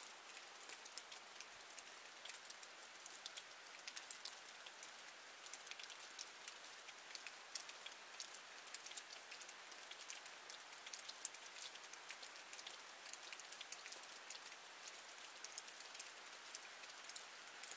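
Steady rain falling: a soft hiss with a dense, irregular scatter of sharp raindrop ticks on a hard surface.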